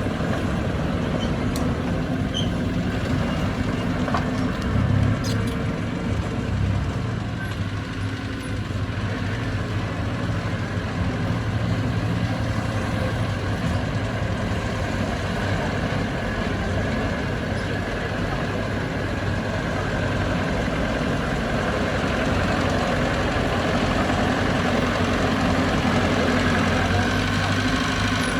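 Heavy diesel engine of earthmoving machinery running steadily, with a short rise in the low engine note about five seconds in.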